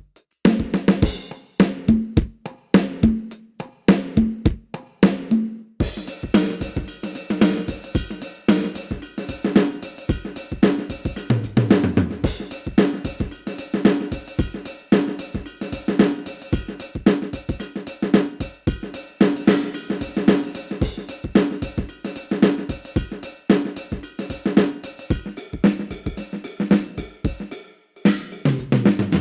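Sampled drum and percussion hits from a Ketron SD90 SF2 soundfont, sounding in a quick, dense succession of strikes with a brief pause about six seconds in.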